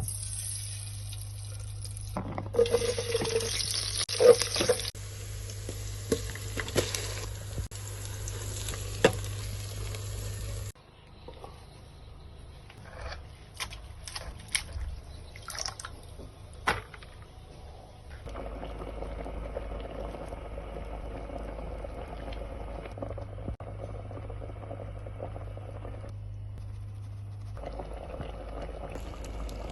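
Water running from a kitchen tap for about ten seconds, stopping suddenly. Then a few scattered clinks and knocks. From about two-thirds of the way in, a steady low rushing noise.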